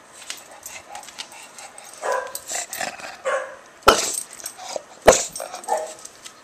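English bulldog puppy barking excitedly in a run of short barks, the two sharpest and loudest about four and five seconds in.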